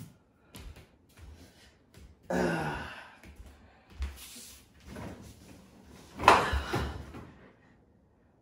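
A man's footsteps, then a long vocal sigh falling in pitch. Near the end comes a heavy thump as he flops down onto an upholstered bed base, the loudest sound here.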